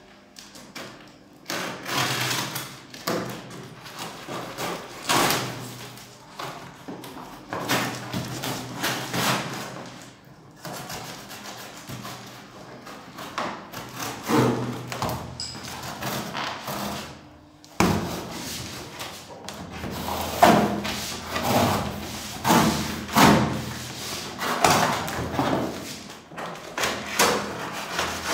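A large cardboard carton being opened by hand: packing tape pulled off in repeated noisy rips, with cardboard rubbing and thudding as the box is handled and its flaps are pulled open.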